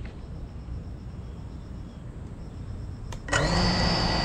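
Brushless motors of a GEPRC Cinelog 35 FPV drone spinning up suddenly about three seconds in and holding a steady idle whine as the drone is armed on the ground, heard from the GoPro mounted on it. Before that, only a low steady background rumble.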